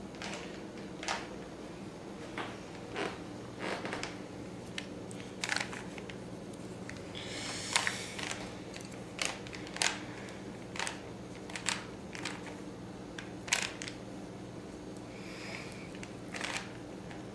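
Plastic Rubik's Cube layers being twisted by hand, giving irregular sharp clicks and clacks about once a second, over a steady low hum.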